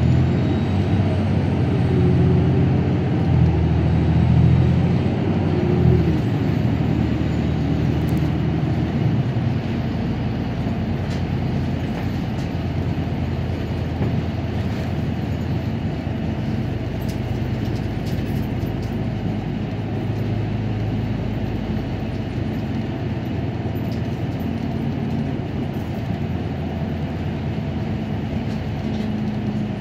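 City bus running, heard from inside the passenger cabin. In the first six seconds the engine note rises and falls a couple of times, then the engine and road noise settle into a steady sound while it drives on.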